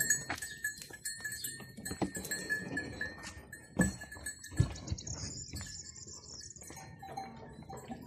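A flock of sheep on the move, with bells clinking and clanking irregularly among them.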